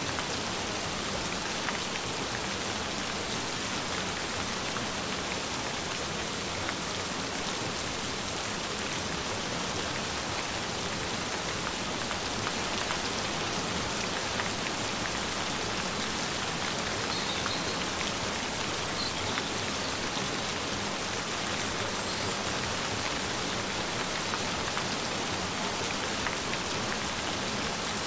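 Gentle rain falling steadily: an even hiss of rainfall with faint, scattered drop ticks.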